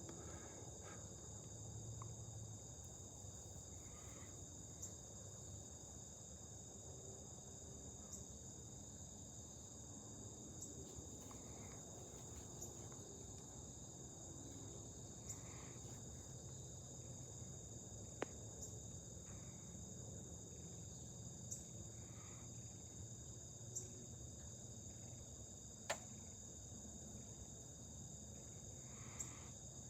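Faint, steady chorus of insects in high, unbroken tones, with a few sharp ticks scattered through it.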